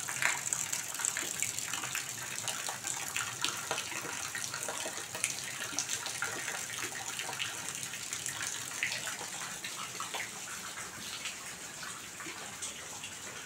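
Heavy rain falling steadily, with water running and dripping off the tiled porch roof in many small splashes; it grows a little quieter near the end.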